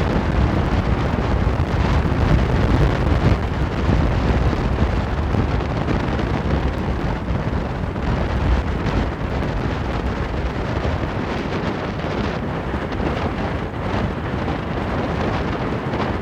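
Strong wind buffeting a phone's microphone: a loud, steady low rumble of wind noise that swells a little a few seconds in.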